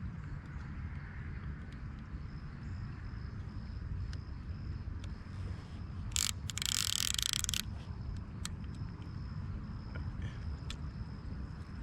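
Open-air river ambience: a steady low rumble with a faint steady high tone over it. About six seconds in, a short sharp noise is followed by about a second of loud rushing hiss, with a few light clicks scattered through.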